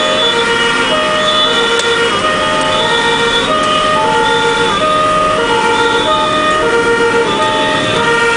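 German two-tone fire-engine siren (Martinshorn) sounding continuously, heard from inside the cab. It steps back and forth between a lower and a higher pitch in a steady rhythm, over the vehicle's road and engine noise.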